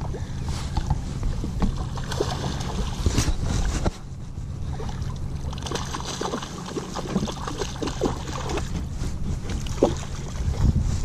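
Water slapping and splashing around a small boat as a hooked snook thrashes at the surface, over a steady low rumble of wind on the microphone.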